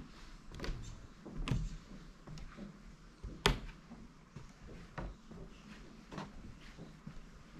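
Slow footsteps on the wooden floorboards of a temple veranda, about one step a second, each a hollow wooden knock; the heaviest step falls about three and a half seconds in.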